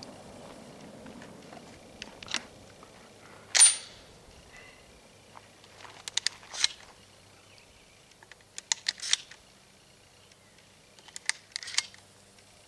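Shotgun being handled between shots: short metallic clicks and clacks of the action and shells, in small clusters every couple of seconds, the loudest a single sharp clack about three and a half seconds in. At the very start the echo of a preceding shotgun blast is still dying away.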